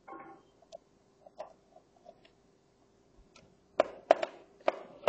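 Small screwdriver working the screws of an Acer ES1-512 laptop's bottom cover: scattered light ticks and clicks, with a cluster of sharper, louder clicks from a little under four seconds in.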